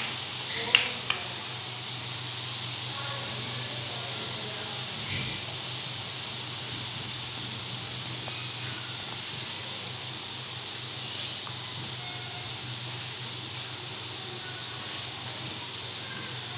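Hot oil in a wok sizzling steadily as thick besan batter drips through a perforated ladle and the small drops fry. A brief knock, likely the spoon on the ladle, comes about half a second to a second in.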